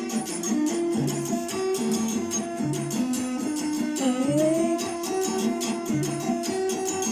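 Instrumental break in a song: a plucked guitar melody over a steady rhythmic bass, with one note sliding up about four seconds in.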